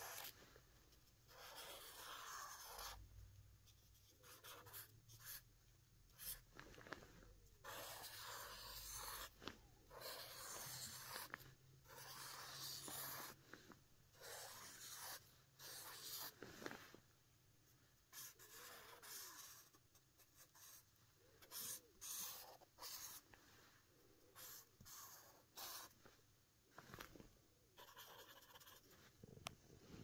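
A felt-tip marker drawing on paper: faint scratchy strokes of the tip across the sheet, some short and some lasting a second or more, with brief pauses between them.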